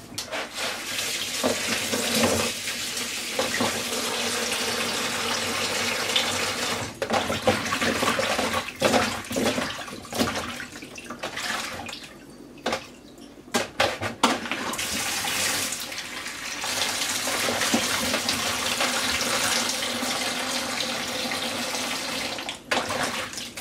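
Kitchen tap running into a stainless steel sink, splashing into a plastic colander while okra pods are rinsed by hand. The flow drops away for about two seconds midway, with a few knocks, then runs again.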